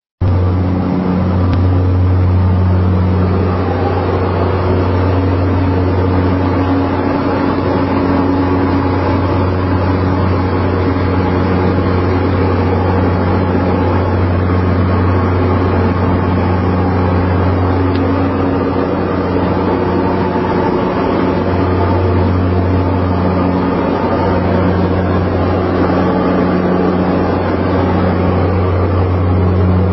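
A steady low engine drone with a deep hum and a few fainter steady overtones, running evenly with slight swells in level.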